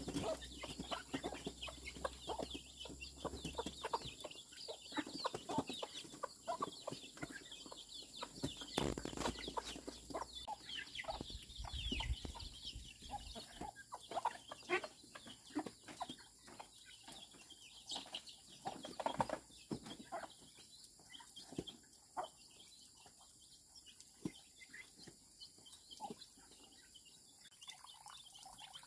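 Chickens clucking in short irregular calls, busiest in the first half and thinning out toward the end.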